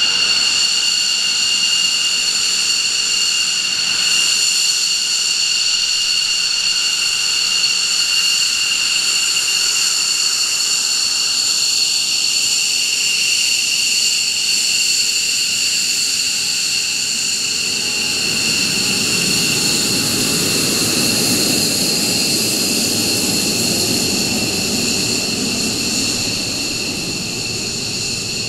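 McDonnell Douglas F-15 Eagle's twin Pratt & Whitney F100 turbofans at taxi power: a steady high whine made of several tones. From about two-thirds of the way through, a deeper exhaust rumble grows as the jet turns its tail toward the listener.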